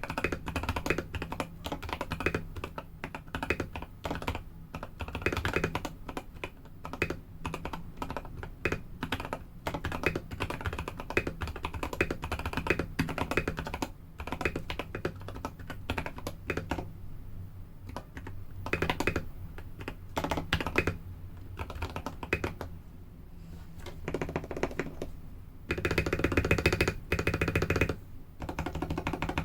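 Typing on a mechanical keyboard with SP-Star Polaris Purple tactile switches lubed with Krytox 205g2, in a steel plate with GMK keycaps: a steady run of quick key clacks, thinning out briefly twice before a faster, louder flurry near the end.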